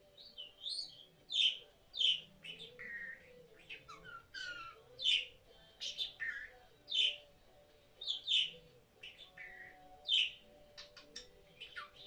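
Pet budgerigar chirping and warbling: a string of short, sharp chirps and squeaky sweeps, the loudest coming about once a second, with softer chatter between.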